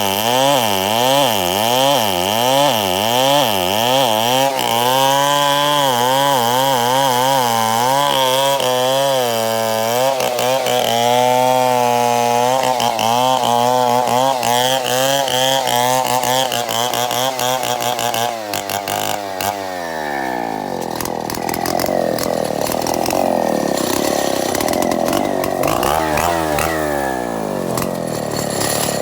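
Two-stroke chainsaw cutting wood into boards, its engine pitch rising and falling about one and a half times a second, then holding steady at high revs. About two-thirds of the way through it winds down to a lower, rougher running.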